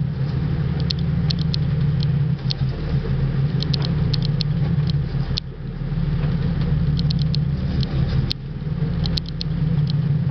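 Boat engine running with a steady low drone. Short high-pitched ticks come in small clusters of two to four every second or so over it.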